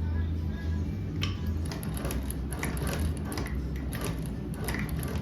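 Manual hand-cranked cobbler sewing machine stitching thick leather: a run of mechanical clicks starting about a second in, about two to three a second, as the needle and feed mechanism cycle.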